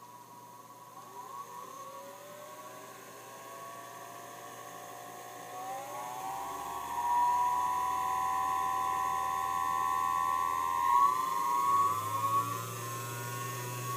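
Singer 221 Featherweight sewing machine motor running with a whir, its pitch rising in steps as it speeds up: about a second in, around six seconds and again near the end. The motor, on a new belt, is in good running order.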